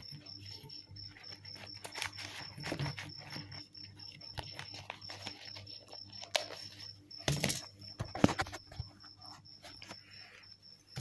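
Paper banknotes being handled and rustled, with scattered clicks and a few louder knocks about two thirds of the way through. A faint, high, evenly pulsing tone runs steadily behind.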